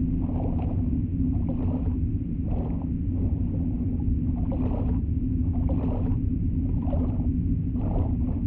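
Dark ambient drone from a horror film soundtrack: a steady low hum with muffled, moaning swells that recur roughly once a second.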